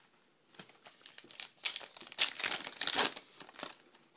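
Crimped paper wrapper of a baseball card pack crinkling and being torn open by hand. The tearing and crinkling start about half a second in, are loudest in the middle, then fade to a few softer crinkles.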